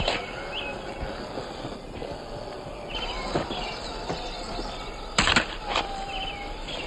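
Outdoor ambience with small birds chirping now and then, a few light clicks, and one louder short crunch or knock about five seconds in.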